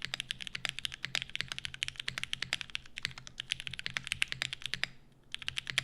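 Fast typing on a custom SL65 gasket-mount mechanical keyboard with Cherry MX Black linear switches, a polypropylene plate, polycarbonate top case and GMK keycaps: a dense run of keystrokes, breaking off briefly near the end and then starting again.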